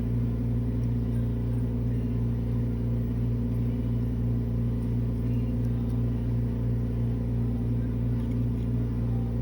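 Steady low mechanical hum of a running electric motor, even and unchanging, with no speech.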